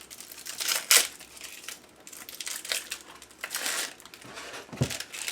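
Plastic packaging crinkling and rustling as it is handled, in irregular bursts, with a sharp crackle about a second in.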